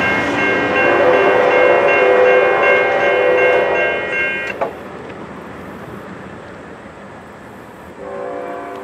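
A diesel locomotive's air horn blows a loud, steady multi-note chord as a train passes and cuts off sharply about four and a half seconds in. The train's running noise carries on more quietly, and the horn sounds again, fainter, near the end.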